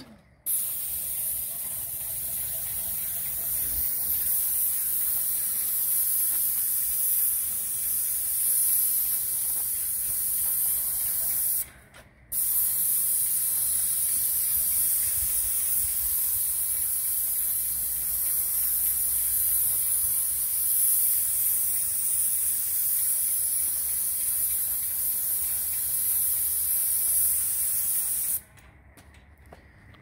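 Airless paint spray gun with a 310 fine-finish tip spraying in a steady high hiss. The trigger is let off briefly just after the start and again about twelve seconds in, and the spray stops shortly before the end.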